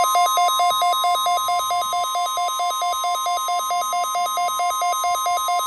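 NOAA Weather Radio 1050 Hz warning alarm tone sounding for the weekly test: a loud, steady high tone with a rapid beeping pulsing over it about four or five times a second.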